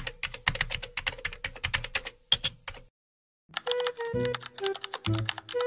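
Keyboard typing sound effect: rapid key clicks, about eight a second, for nearly three seconds. After a brief silence, a light melodic music tune begins.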